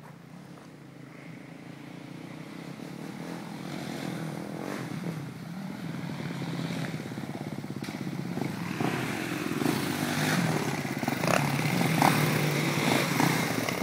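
Sport ATV's single-cylinder four-stroke engine approaching, growing steadily louder and loudest near the end.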